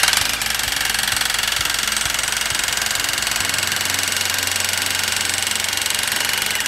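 Corded electric jackhammer hammering rapidly and steadily through a driving dolly, pounding a steel ground-anchor pile into the soil.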